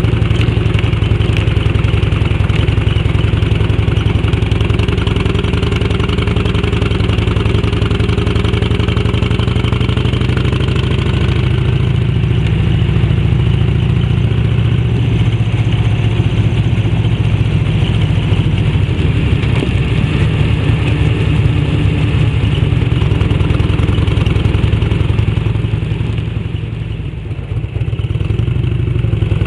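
Harley-Davidson Electra Glide sidecar rig's V-twin engine (1340 cc Evolution) running at road speed, heard through a fish-tail silencer. The engine sound dips briefly near the end, then picks up again.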